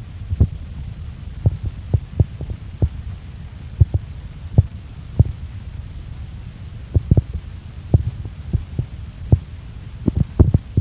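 Low rumble on the microphone with irregular dull thumps, about one or two a second: microphone buffeting or handling noise.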